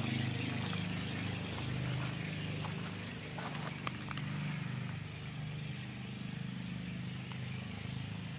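A steady low engine-like hum runs in the background, with a few faint clicks about three and a half to four seconds in.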